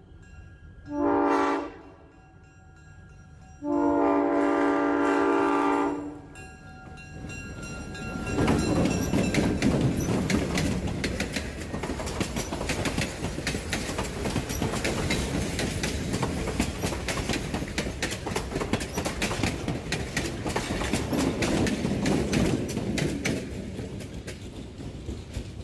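Diesel locomotive horn sounds a short blast about a second in, then a long blast, closing the horn signal for a road crossing. Then a passenger train passes close by: a loud rumble with the clickety-clack of coach wheels over the rails, easing slightly near the end.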